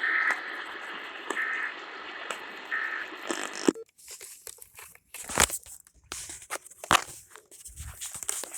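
Hissy radio reception with three short beeps about a second and a half apart, cutting off suddenly about four seconds in. Scattered clicks and rustling handling noises follow.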